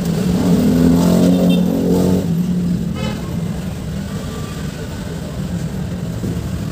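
Motor vehicle engine running with a steady low rumble, revving up and easing off over the first two seconds.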